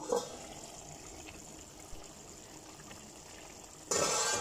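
A stainless steel pot lid is lifted off with a short clink, then thick beef and potato porridge simmers softly in the uncovered pot. Near the end comes a louder, half-second burst of wet noise from the pot.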